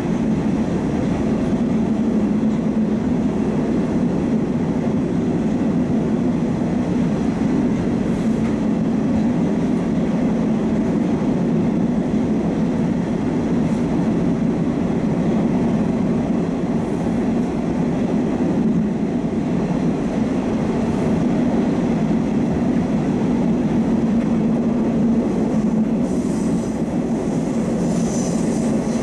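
Moscow metro train running at speed through a tunnel, heard from inside the car: a steady rumble of wheels and running gear. Near the end a high wheel squeal starts to come in.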